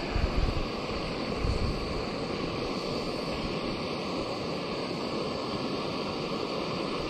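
Backpacking canister gas stove burning steadily under a pot of water, a continuous hiss, with two low thumps in the first second and a half.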